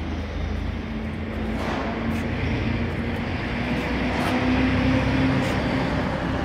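Steady mechanical rumble with a hum, typical of machinery running in a workshop, with a few faint clicks or knocks.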